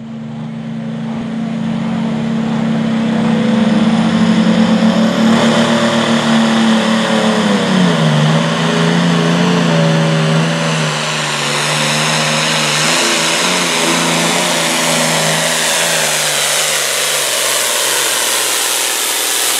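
A John Deere hot farm class pulling tractor's engine running flat out as it hauls a weight-transfer sled, its stack smoking. About eight seconds in, the engine note drops as it lugs down under the sled's growing load, then holds steady and loud to the end.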